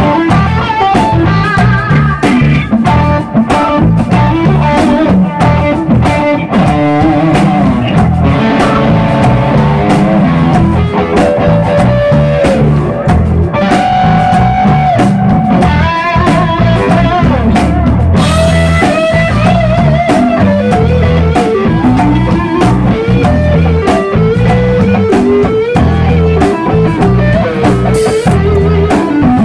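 Live band music: an electric guitar plays a melodic lead line with some long held notes over bass guitar and a busy drum kit.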